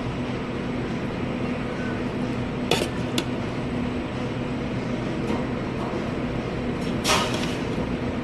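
Steady low mechanical hum with a constant tone, broken by a few sharp clicks and clatters: two about three seconds in and a louder one about seven seconds in.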